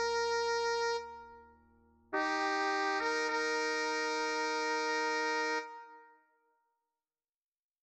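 Synthesized score playback of a choir arrangement's closing chords, with a brass-like timbre. A held chord fades out about a second in. A new chord enters just after two seconds, holds steady for about three and a half seconds as the last chord of the piece, then dies away to silence.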